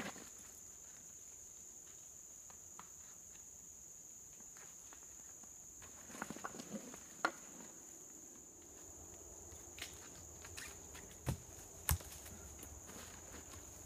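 Insects buzzing steadily on one high note. Against it, a backpack and gear are handled and hung on a tree: rustling and small knocks about six to seven seconds in, then two sharper knocks near the end.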